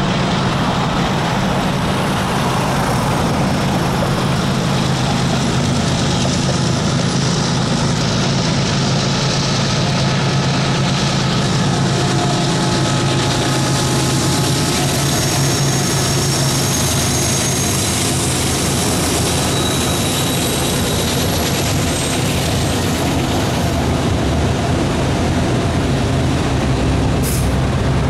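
Freight train passing at speed: the two lead GE diesel locomotives, an ES44C4 and an AC44CW, run by with a steady deep engine drone, followed by tank cars rolling over the rails. A brief high-pitched tick sounds near the end.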